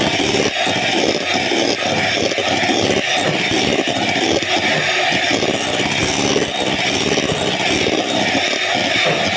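Handheld electric mixer running steadily, its beaters whipping cream in a bowl.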